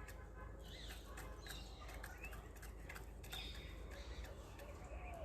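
Faint outdoor bird chirps, short calls here and there, over scattered light clicks.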